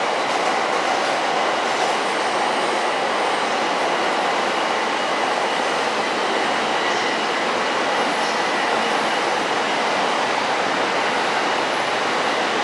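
A JR East 253-1000 series electric limited-express train rolling in along the station platform. Its wheels and running gear make a steady rumble with some rail clatter and faint wheel squeal.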